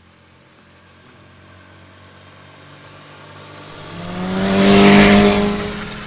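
A motorbike passing close on a wet road. Its engine note and tyre hiss grow louder to a peak about five seconds in, then fade as it moves away.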